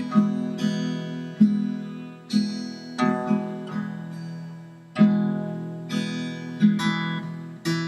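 Background music: acoustic guitar strummed in slow chords, each strum fading before the next.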